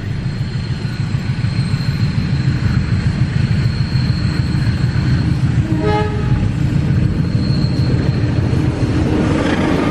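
Diesel-electric locomotive hauling a passenger train approaching and passing close by, its engine noise low and steady and growing louder as it nears. A short horn toot sounds about six seconds in.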